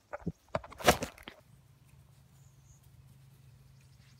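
A Shetland sheepdog puppy brushing and bumping against the phone's microphone: a few close scuffing knocks over the first second and a half, the loudest about a second in. Then only a faint steady low hum.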